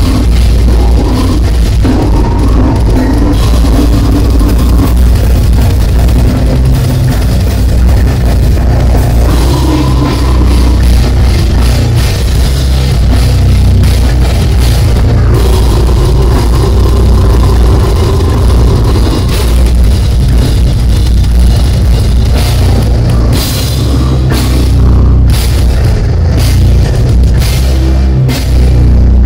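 Live heavy metal band playing at full volume: distorted guitars, bass and a drum kit with crashing cymbals, with vocals shouted into the microphone. The sound is loud and steady, with the deep low end strongest.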